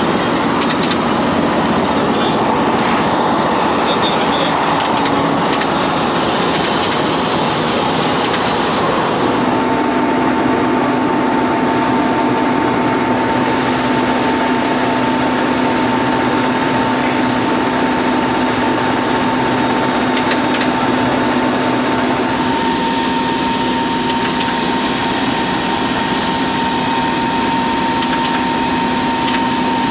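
Helicopter engine and rotor noise heard inside the cockpit: a loud, steady drone with a constant hum. The sound changes abruptly about a third of the way through and again at about two-thirds, where the recording cuts between clips.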